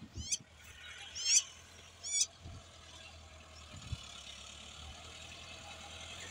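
A bird calling three short descending chirps in the first two and a half seconds, over the faint steady drone of a Massey Ferguson tractor pulling a harrow through the soil. A few low thumps are heard as well.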